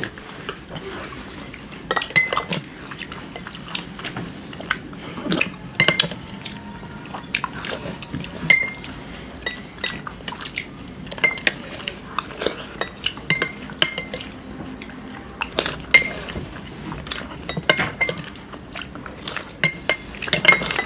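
A spoon clinking and scraping against a dish over and over while someone eats, in irregular sharp clinks, some of them ringing briefly.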